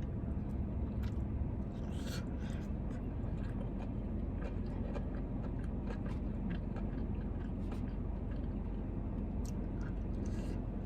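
A person chewing and eating food, with small scattered clicks and mouth sounds, over a steady low hum.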